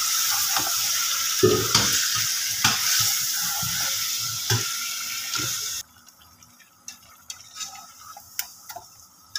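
Beef chunks sizzling as they brown in hot oil in an aluminium pot, with a ladle scraping and knocking against the pot as they are stirred. About six seconds in the sizzle cuts off suddenly, leaving quieter scrapes and taps.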